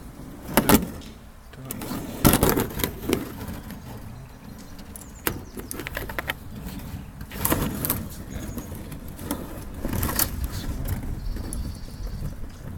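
Round-nose pliers working on wire eyes and metal parts: scattered sharp metallic clicks and clinks, a few seconds apart, as the wire is bent and the parts are handled.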